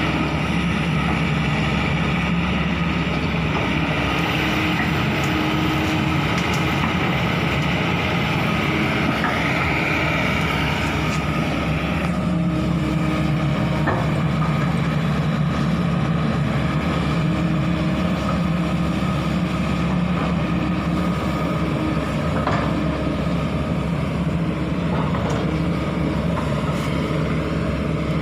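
Hydraulic excavator's diesel engine running steadily under load, with a higher hydraulic whine that rises about ten seconds in and drops away a couple of seconds later.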